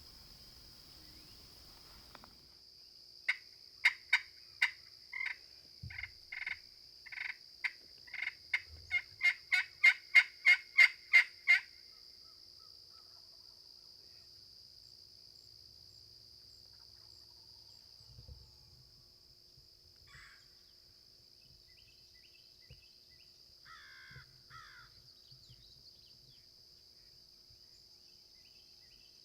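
A bird calling a long series of sharp, loud notes that come faster and louder, then stop suddenly, over a steady high drone of insects.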